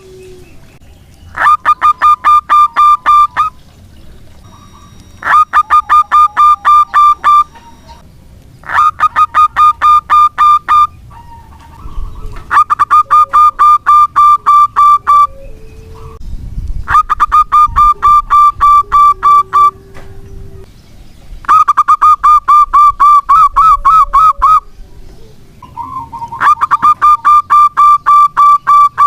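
Zebra dove (local perkutut) cooing: a phrase of rapid, evenly pulsed notes lasting two to three seconds, repeated about every four seconds, seven times.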